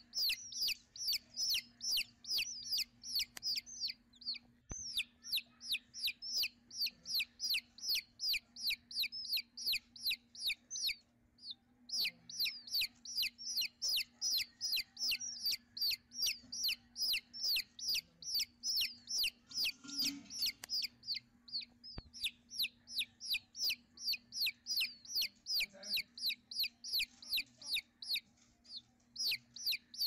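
Oriental magpie-robin nestlings begging: a fast, even run of short, high, sharp calls, about three a second, breaking off briefly twice.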